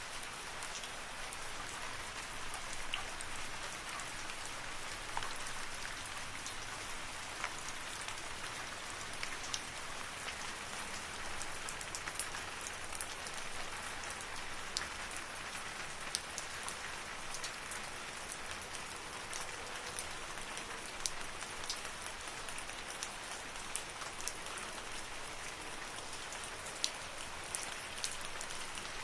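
Steady rain falling in a forest, an even hiss with many individual drops ticking sharply here and there.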